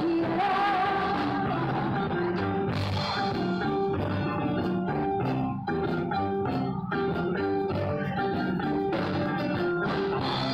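Live band playing an instrumental passage with no vocals: keyboard, electric guitar and drums in a steady dance rhythm, with short repeated keyboard and guitar notes.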